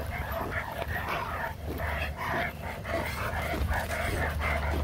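Several dogs barking and yipping in short, irregular barks, over a steady low rumble.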